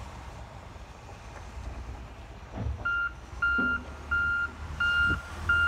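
A heavy vehicle's reversing alarm starts about three seconds in: a steady single-pitched beep repeating about one and a half times a second, over a low rumble.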